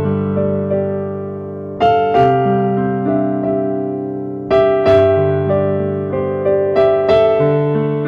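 Slow instrumental keyboard music: sustained piano-like chords struck about every two and a half seconds, with single notes moving between them.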